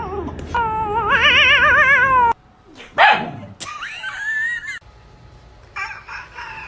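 A cat's long, warbling yowl that wavers rapidly in pitch, cut off about two seconds in. Then come a few short, squeaky high cries from a cat, one sweeping sharply up.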